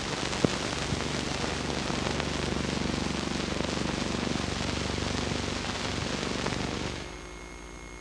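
Steady hiss and crackle of an old film soundtrack, with a sharp click about half a second in. Near the end the hiss drops away, leaving a faint low hum.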